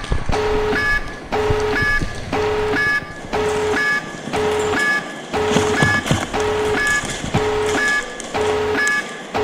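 A video-game tactical nuke alarm sound effect: a two-tone alarm repeating over and over, a lower tone alternating with a higher beep about four times every three seconds.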